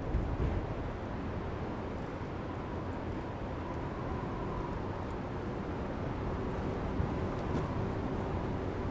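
Steady low rumbling background ambience with a faint steady hum, with no clear single event in it.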